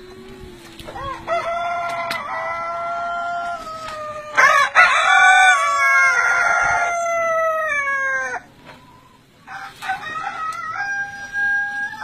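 Long-tailed roosters crowing: three long drawn-out crows one after another, the middle one the loudest.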